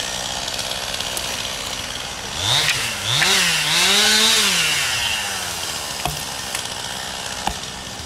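Two-stroke chainsaw idling steadily, then revved up and down a few times in the middle, its pitch rising and falling, before dropping back to idle.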